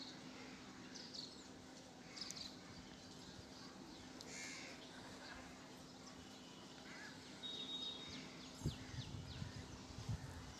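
Faint scratchy rubbing of fingers working through hair, stronger and rougher over the last two seconds, with birds calling faintly in the background, one louder call about four seconds in.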